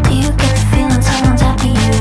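Pop/R&B-style music with a heavy sustained bass and a steady beat of sharp percussion, without vocals.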